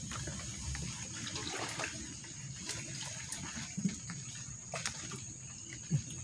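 River water trickling and lapping, with a steady high thin tone and a few short low calls twice in the second half.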